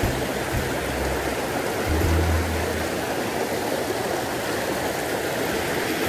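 Mountain stream water rushing steadily over rocks and small cascades.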